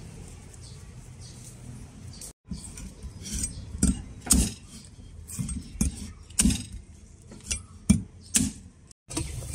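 Cleaver striking a whole wax gourd on a wooden chopping board: a run of sharp knocks and clinks, roughly two a second, beginning about two seconds in.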